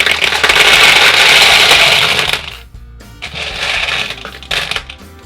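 Plastic packaging crinkling and tearing as a toy is unwrapped, in two long noisy stretches. Quiet background music plays under it.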